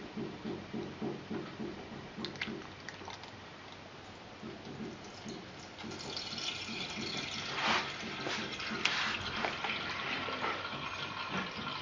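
Water poured through a funnel into the boiler of a Graupner 5000 model steam plant, glugging and trickling as the boiler fills. The glugs come quickly and evenly at first, and the flow grows louder about six seconds in.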